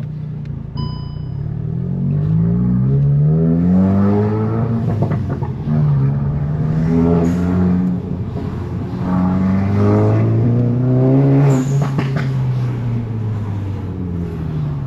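Volkswagen Golf GTI Mk8's turbocharged four-cylinder engine heard while driving, its pitch climbing and dropping several times as the car accelerates and eases off. A short electronic chime sounds about a second in.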